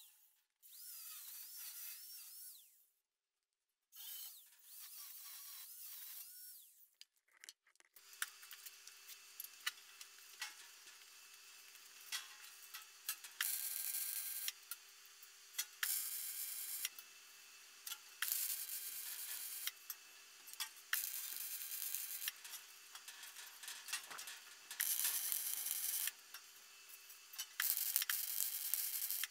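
An angle grinder runs briefly with a wavering whine, then from about eight seconds in an arc welder crackles and sizzles in short bursts of a second or two while welding steel sheet. A steady hum carries on underneath through the pauses.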